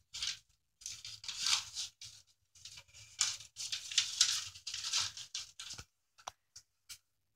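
Pet rats rustling and tearing paper bedding in their cage in irregular bursts as they drag it about to build a nest, with a few clicks near the end.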